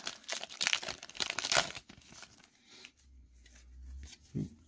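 A foil Pokémon card booster pack being torn open and its wrapper crinkled: a dense run of crackles in the first two seconds, then quieter handling.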